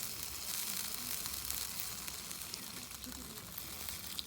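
Food sizzling as it fries: a steady hiss with fine crackling.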